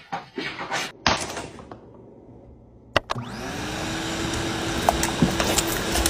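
A few light knocks in the first second or so, then an electric motor starts about three seconds in: its whine rises briefly and then holds steady under a continuous whir.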